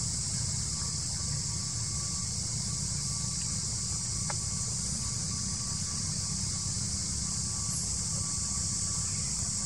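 A steady, unbroken high-pitched insect drone, with a low rumble beneath it.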